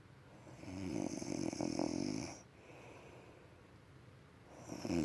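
A man snoring heavily in his sleep. One long, rough snore starts about half a second in, and a second begins near the end.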